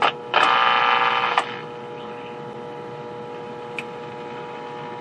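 Loudspeaker of a 1949 Majestic Model 120 television giving a steady hum, with a click and then about a second of loud garbled sound just after the start. The hum comes from failing B+ filter capacitors in the power supply, which are not smoothing the supply.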